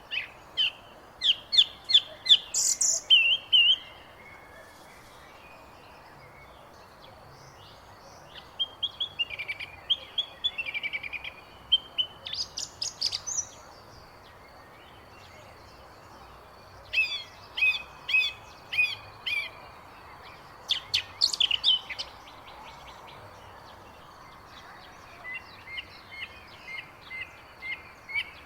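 Songbirds chirping and trilling in short phrases of quick high notes, separated by pauses of a few seconds, over a faint steady background hiss.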